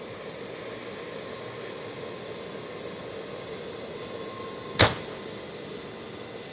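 A locomotive moving slowly toward night-train coaches while being shunted, with a steady hum. One sharp, loud bang comes about three-quarters of the way through.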